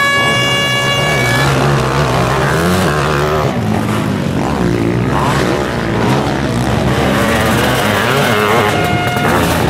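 Sidecar motocross outfits' engines revving and rising and falling in pitch as they race past on a dirt track. An air horn sounds at the start and stops about a second and a half in.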